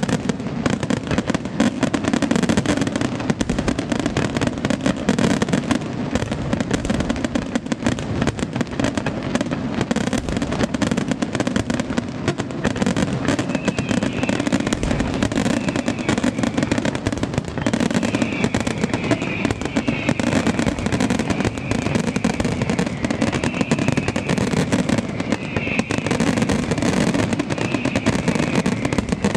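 Professional fireworks display in a dense, continuous barrage: a rapid, unbroken crackle of shell bursts and launches with no pause.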